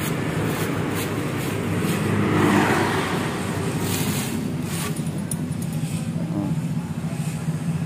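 Clear plastic wrapping crinkling and rustling in scattered handfuls as it is pulled off a new stainless exhaust header pipe. A steady low engine hum of a vehicle runs underneath.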